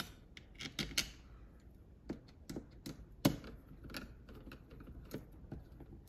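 Irregular small metallic clicks and taps as a hand screwdriver drives a mounting screw into the inside housing of an electronic deadbolt, with the sharpest click a little over three seconds in.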